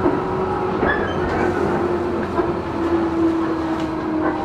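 Inside a Tobu 10030 series field-chopper electric train running between stations: a steady rumble with a motor and gear whine that rises slightly in pitch, and a few wheel clacks over rail joints.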